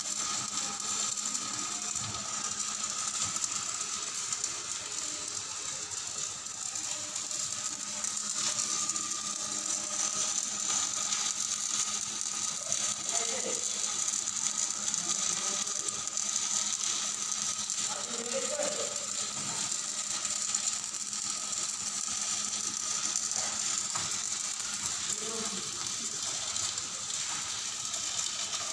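Stick (shielded metal arc) welding arc crackling and sputtering steadily as the electrode burns down along the weld, throwing sparks.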